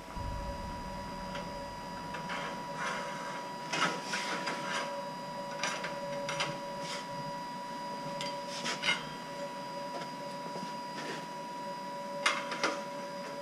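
Light clicks and scrapes of steel tubing being handled against a welded steel saw stand, over a steady hum.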